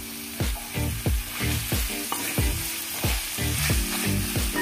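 Chicken pieces sizzling in hot oil in a wok, stirred and scraped with a wooden spatula, giving a steady sizzle with repeated short knocks. Background music plays underneath.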